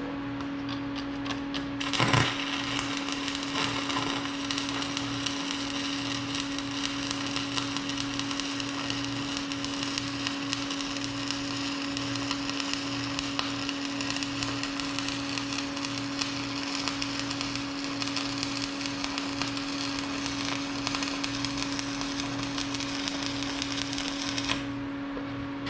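Stick welding arc, struck with a sharp crack about two seconds in, then crackling and sizzling steadily as the rod burns until it breaks off near the end. A steady hum runs underneath.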